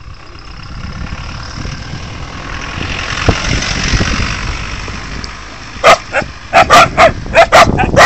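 Shelter dogs in a pen barking, a quick run of about eight or nine sharp, loud barks in about two and a half seconds, starting near the end. Before it a rushing noise swells and fades.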